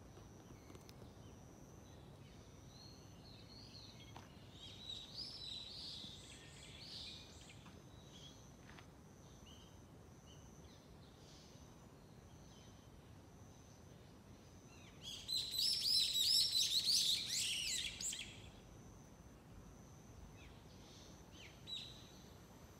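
Wild birds chirping over faint outdoor background noise: scattered chirps in the first several seconds, then a loud burst of rapid, dense chirping lasting about three seconds, and one short chirp near the end.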